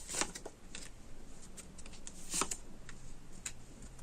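Tarot cards being handled on a table: a few short, separate card flicks and taps, the loudest about two and a half seconds in.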